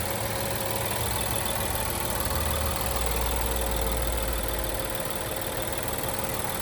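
A 2021 Infiniti Q50's 3.0-litre twin-turbo V6 idling steadily, with a low hum that grows stronger for a couple of seconds partway through.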